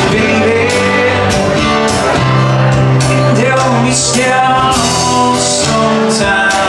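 Live band playing: a man singing over acoustic guitar and electric guitar, with a steady bass line.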